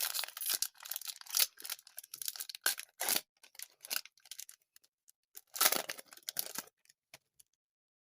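A sticker-pack wrapper being torn open and crinkled: dense rustling and tearing for about four seconds, then another short burst about five and a half seconds in.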